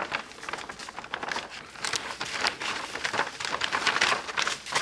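Clear plastic bag crinkling and rustling as it is handled, with a slab of raw pork belly inside, in a dense run of small irregular crackles.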